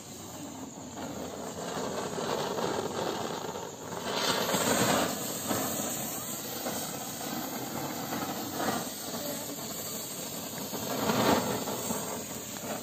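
Silver Rain Torch pencil firework burning with a steady hiss as it sprays sparks, swelling louder about four seconds in and again near the end.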